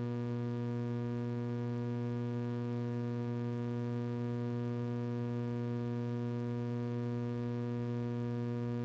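Steady electrical mains hum with a stack of unchanging overtones, running evenly with no other sound over it.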